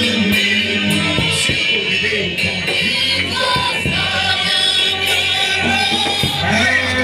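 Live worship music: singing voices over sustained band accompaniment.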